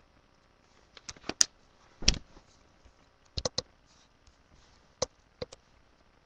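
About a dozen sharp clicks and taps in small clusters, the loudest a duller knock about two seconds in.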